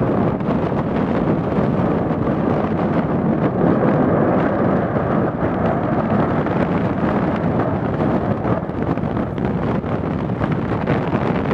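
Steady rumbling roar of an ash eruption from Semeru's summit crater, mixed with wind on the microphone.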